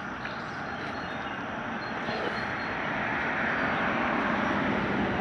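Steady rushing engine noise of a passing aircraft, slowly growing louder.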